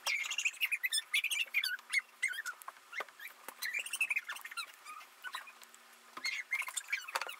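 Vinyl electrical tape being pulled off the roll and wound around a wire splice: short squeaky, crackling peels that stop and start, with a quieter pause in the middle.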